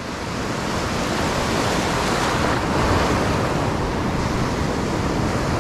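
Ocean surf breaking and foaming up the beach, a steady rushing wash that swells over the first few seconds, with wind on the microphone.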